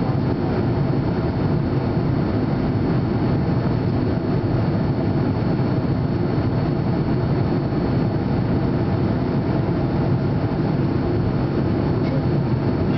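Steady cabin noise inside an Avro RJ85 in flight: the deep rumble of its Lycoming LF507 turbofans and the rush of air over the fuselage, with a faint steady high whine above it.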